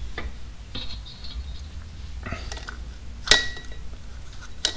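Steel clutch disc being slid over a clutch alignment tool and seated against an aftermarket flywheel: light scraping and one sharp metallic clink with a brief ring about three seconds in, and a smaller clink near the end, over a low steady hum.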